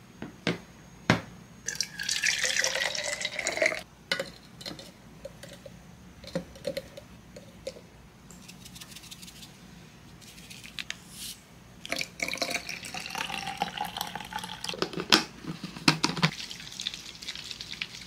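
Water running from a tap into a sink, in a short run about two seconds in and a longer run from about twelve seconds, with clicks and knocks in between.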